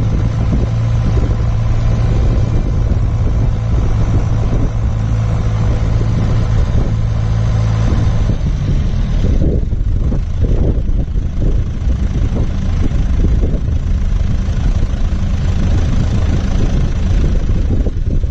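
John Deere 6400 tractor's diesel engine running with a steady hum that eases off about nine seconds in, under constant rough rumbling from wind on the microphone.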